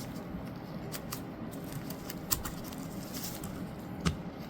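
Light metallic clicks and scraping from a 1911 pistol's recoil spring plug and barrel bushing, pressed in and turned by hand against the spring. A few scattered clicks, with the sharpest near the end.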